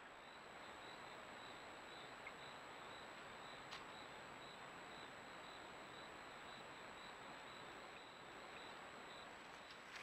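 Near silence: a trail camera's steady hiss with a faint constant high whine. A faint, high, even chirp repeats about three times a second and stops near the end, like a cricket. There is one faint tick about a third of the way in.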